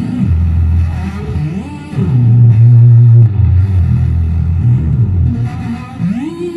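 Modified Silvertone fretless bass played through bass multi-effects: low held notes joined by smooth slides up and down the neck. A slide about a second and a half in drops back down, and near the end a long slide rises to a higher held note.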